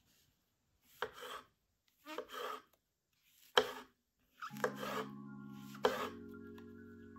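A kitchen knife slices through a raw button mushroom on a wooden board: five cuts about a second apart, each a short crunching rasp ending in a tap of the blade on the wood, one a sharp knock. Soft background music comes in about halfway through.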